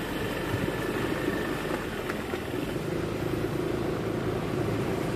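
Small motorcycle engine running steadily at low speed, an even hum without revving.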